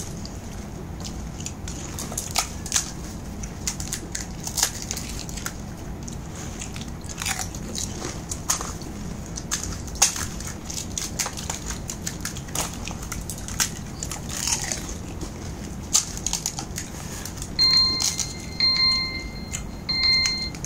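Crisp fuchka (pani puri) shells being cracked open with the fingers and bitten, crunching and chewing in quick, irregular clicks. Near the end an electronic timer beeps three times as the one-minute limit runs out.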